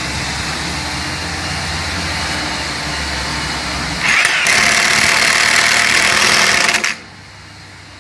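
Impact driver running for about three seconds as it drives a hex-head screw through a steel angle bracket into a wooden rafter, starting about halfway through and cutting off suddenly near the end. Before it there is a steady mechanical hum.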